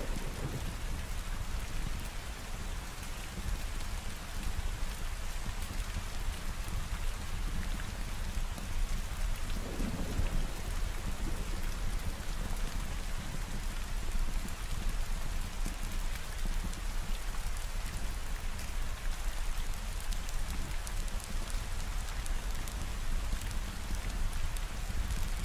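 Steady rain falling, with a low rumble of thunder underneath and one brief swell about ten seconds in.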